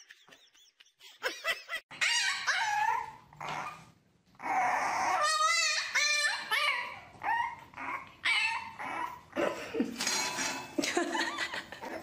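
A puppy whining and yelping in a string of short, high cries that rise and fall, starting after a quiet first second, with one wavering drawn-out cry about five seconds in.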